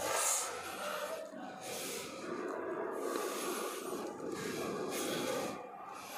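Pencil lead scratching across paper as lines are ruled along a steel ruler, in a series of strokes with short breaks between them.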